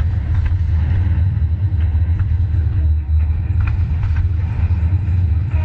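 Fireworks display: a continuous deep rumble, with faint scattered crackles and pops from the spark fountains.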